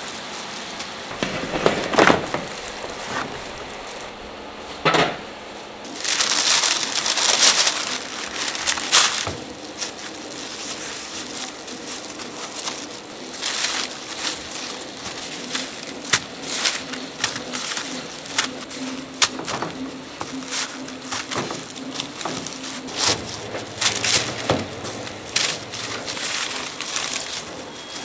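Scattered light knocks, clicks and rustling of food handling: plastic-gloved hands crinkling and fried donuts and buns being set on paper-lined wooden trays.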